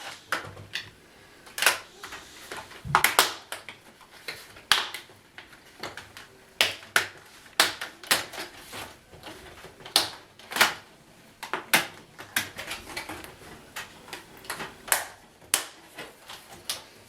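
The plastic screen bezel of an Acer Aspire 5749 laptop being pried off, its snap clips releasing with a string of sharp, irregular clicks and snaps.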